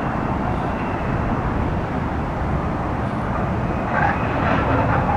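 Steady rumble of street traffic, with a few faint brief sounds about four seconds in.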